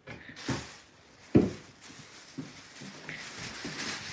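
Thin plastic bag rustling and crinkling as a kitten plays with it, with two dull thumps in the first second and a half, the second one louder.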